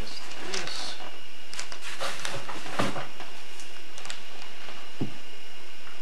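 Steady camcorder tape hiss with a faint steady tone, over which come scattered faint knocks and rustles as a toddler shifts on a plastic toddler slide, with a low knock about five seconds in.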